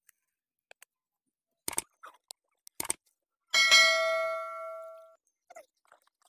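Two sharp mouse-click sound effects, then a bright bell chime about three and a half seconds in that rings out and fades over about a second and a half: the click-and-notification-bell sound effect of a subscribe-button animation.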